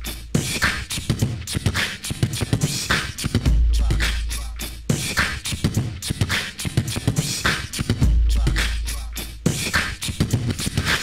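Rhythmic music with dense, quick percussive hits and a deep bass note that swells about every four and a half seconds.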